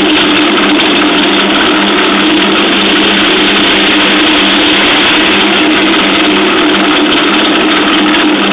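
Swaging machine running steadily under load as a cartridge heater tube is fed into its head: a loud, even mechanical drone with a steady low hum beneath.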